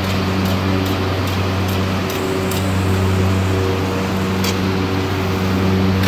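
Commercial chili pepper cleaning machine, with screening decks and an air-separation section, running steadily: a loud even mechanical hum over a constant rushing noise. Light regular ticks, about two to three a second, run through it, with one sharper click a little past the middle.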